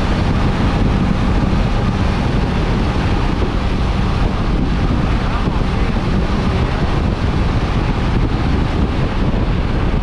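Heavy wind noise buffeting the microphone of a motorcycle riding at speed, with the bike's engine running steadily underneath.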